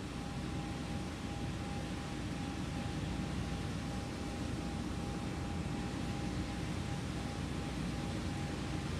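Steady rushing noise of launch-pad ambience, with a faint, even hum held at one pitch.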